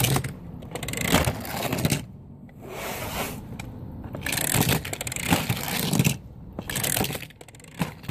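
Die-cast metal toy engine (Take-n-Play Duncan) rolling and rattling along a plastic toy track, heard as several scraping runs of a second or two with short pauses between.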